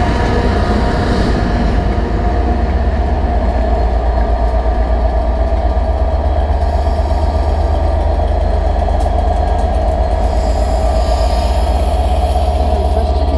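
Railway machinery running steadily: a yellow Network Rail track maintenance machine rolling past, then the diesel engine of a Class 67 locomotive running with a constant whine over a low rumble.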